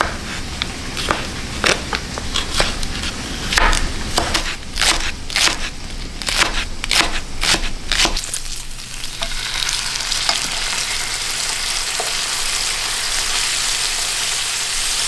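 A chef's knife chops cucumbers and green onions on a bamboo cutting board in quick, irregular knocks. About eight seconds in it gives way to pork belly strips sizzling steadily in a frying pan, rendering in their own fat with no oil added.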